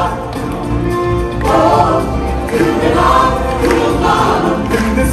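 Live stage show music: a singer on a microphone and a choir singing together over an accompaniment with a steady low bass.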